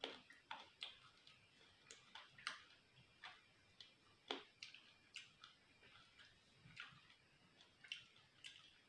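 Close-miked chewing: a person eating, with irregular soft crunches and wet mouth clicks, about two or three a second.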